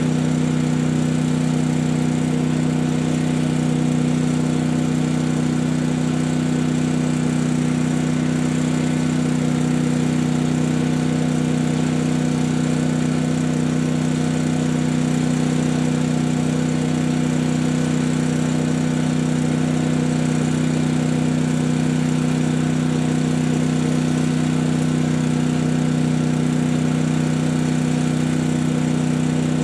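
Generator and air compressor that charge an air cannon, running with a steady, unchanging hum.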